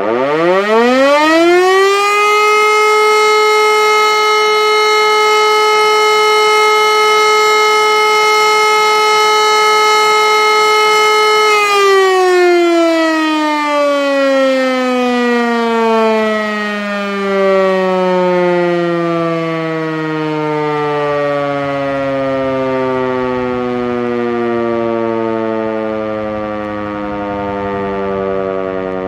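Hörmann E57 electromechanical civil-defence siren sounding its test signal. It winds up quickly to a steady tone within about two seconds and holds it for about ten seconds. Then it winds down in a long, slowly falling tone that is still sounding near the end.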